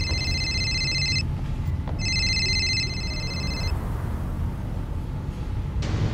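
An electronic telephone ringing in two rings, each about two seconds long, over a steady low rumble. A sudden noise comes near the end.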